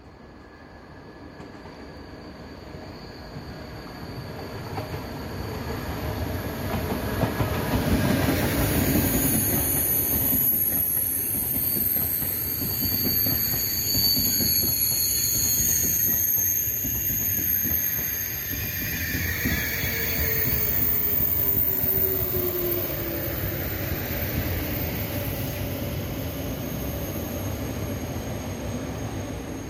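A TGV 2N2 double-deck high-speed electric train passing: the rush of the train builds as it approaches, stays loud for about fifteen seconds with high whistling tones over the wheel and air noise, then fades as it goes away.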